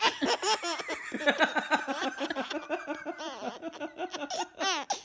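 Young baby laughing, a run of quick giggles one after another.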